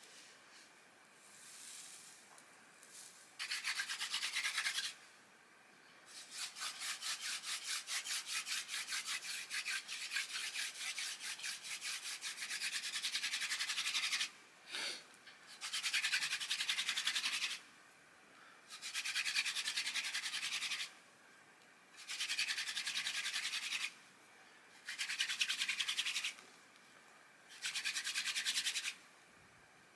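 Hand-drill fire-making: a wooden spindle spun back and forth between the palms, its tip rubbing into a wooden fireboard to raise an ember by friction. It comes as a dry, pulsing rub in seven bouts, the longest about eight seconds, with pauses of about a second between bouts as the hands go back up the spindle.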